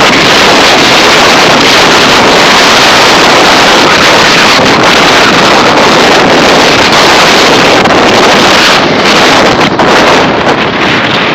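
Hurricane-strength wind blasting across the microphone: a loud, steady rush of noise with small flutters, easing slightly near the end.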